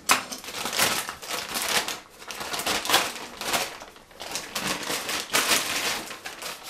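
Thick plastic bag crinkling and rustling in irregular bursts as it is pulled and worked off a new iron bench plane.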